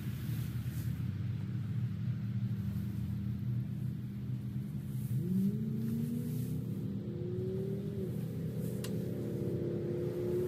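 An unseen motor engine running steadily; about five seconds in it revs up, rising in pitch, then holds at the higher speed.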